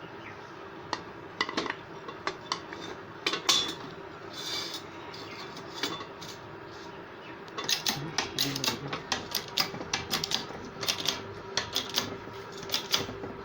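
Metal ceiling-fan parts clinking and tapping as they are handled and fitted together. There are scattered sharp clicks at first, then a quick run of taps from about halfway to near the end as the parts are seated.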